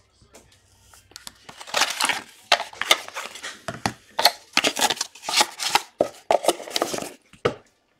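A cardboard trading-card box and its packaging being pulled open and handled by hand: a quick, irregular run of rustling, scraping and crinkling noises that starts about a second and a half in.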